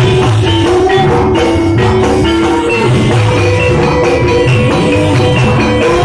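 Javanese gamelan music for a jathilan dance: metal keyed instruments ringing out short repeated melodic notes over steady drum strokes.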